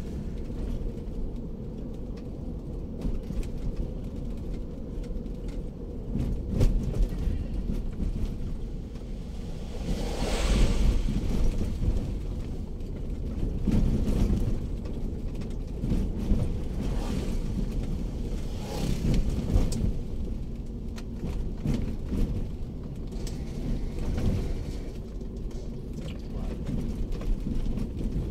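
Daihatsu Terios on the move, heard from inside the cabin: a steady low rumble of engine and tyres on the road, swelling louder several times.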